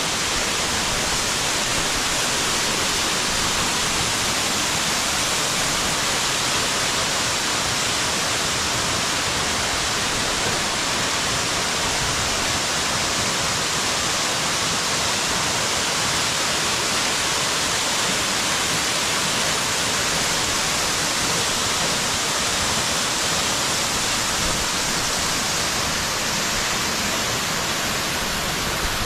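Soco Falls, a double waterfall, pouring steadily: a loud, even rush of falling water.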